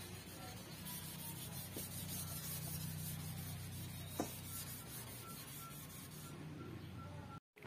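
Hand sanding a car door panel with a sanding pad, the abrasive rubbing steadily over the old paint to prepare it for repainting. There is a single light tap about four seconds in, and the rubbing stops abruptly just before the end.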